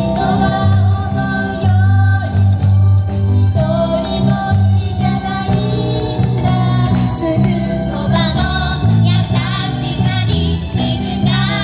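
A group of singers, women and young performers, singing a Japanese pop song together over a live band with guitar and keyboard, amplified through a PA system.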